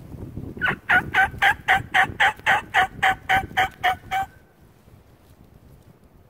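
A hand-held turkey call blown by mouth in a fast run of about fifteen notes, roughly four a second, that stops about four seconds in. The call is worn out.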